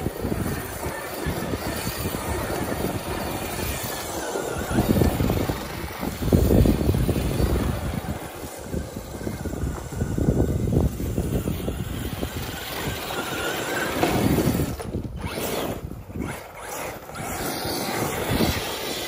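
Arrma Kraton 8S 1/5-scale RC monster truck being driven hard on dirt: brushless motor and drivetrain running with surging throttle and tyres churning. Near the end the sound drops out briefly a few times as the batteries run flat.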